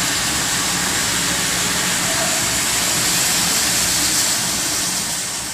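Steam hissing steadily from the LMS Jubilee Class 4-6-0 locomotive Galatea, with no regular beat. It fades away near the end.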